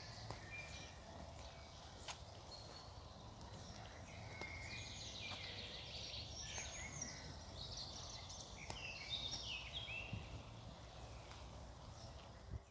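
Faint songbird singing: a few scattered short high notes, then a busy run of twittering chirps from about four seconds in until about ten seconds in, over a low rumble.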